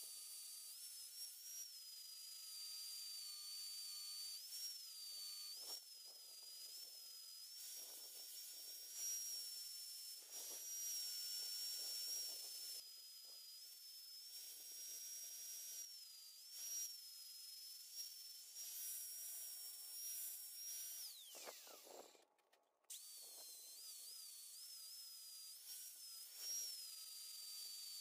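Right-angle grinder running with a high whine whose pitch dips and recovers as it bears on an aluminum casting. About 21 seconds in it is switched off and winds down with a falling whine, then is started again a second or so later and runs on.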